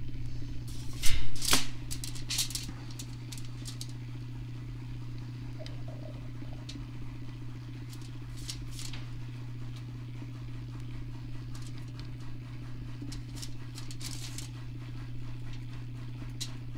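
Low steady hum of the motor turning the rod blank, with a short run of sharp clicks and rustles from hands and tools about a second in and a few faint ticks later.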